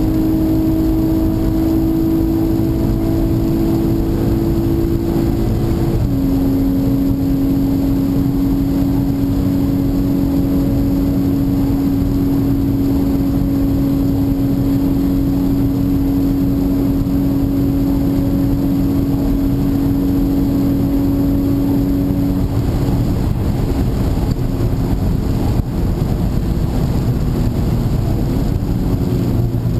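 Inside the cabin of a 2011 VW Golf VI R: its turbocharged 2.0-litre four-cylinder pulls at full throttle with a slowly climbing note, shifts up about six seconds in, then holds a steady high drone over loud tyre and wind noise. About 22 seconds in the engine note falls away, leaving mostly road and wind noise.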